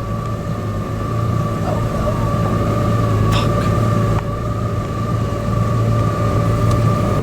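Boat motor running steadily: a low hum with a steady high whine over it.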